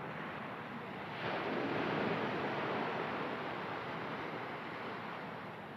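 Ocean surf breaking on the beach: a rushing wash that swells about a second in, then slowly fades away.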